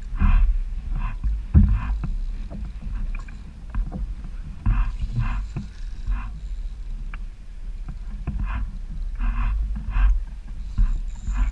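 Water splashing and slapping in irregular bursts against a kayak on choppy, wind-driven water, over a constant low rumble of wind buffeting the microphone.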